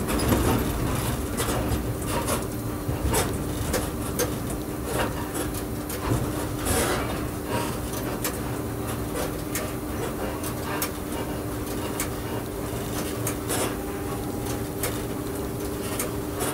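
A train running along the track, heard from inside the driver's cab: a steady low rumble with a held two-note hum, and irregular clicks and rattles throughout.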